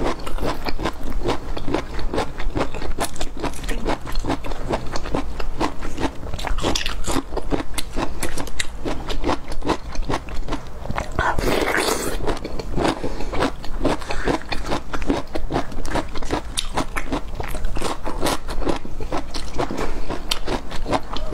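Close-miked biting and chewing of cooked bamboo shoots: a dense, steady run of crisp crunchy clicks, with a louder burst about halfway through.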